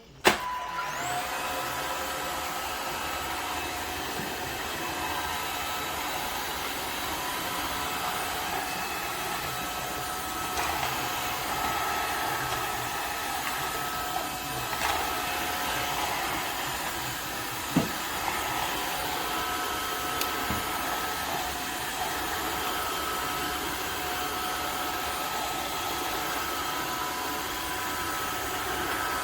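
Tineco Floor ONE S5 wet-dry vacuum switched on with a click, its motor whine rising quickly and then running steadily, with a single sharp click about two-thirds of the way through.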